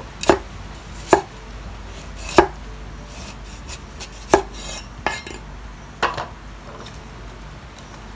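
Cleaver slicing galangal into thin pieces on a thick wooden chopping block. Each cut lands as a single sharp knock of the blade on the wood, about six knocks spaced unevenly, roughly a second apart.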